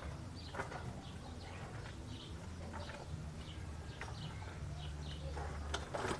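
Small birds chirping in short, repeated calls over a steady low rumble, with a brief louder noise near the end.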